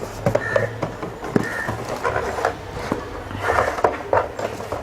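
Irregular clicks, knocks and rustling from the trimmer kit's packaging and parts being handled.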